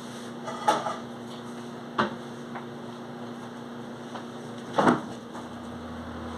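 Three short knocks and clatters, like things being handled and set down in a kitchen, over a steady low hum.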